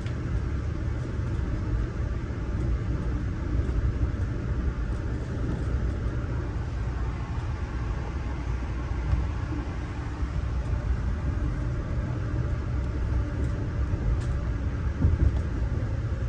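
Steady low rumble of a Budd Amfleet passenger coach rolling along the rails, heard from inside the car, with faint ticks and a brief louder bump near the end.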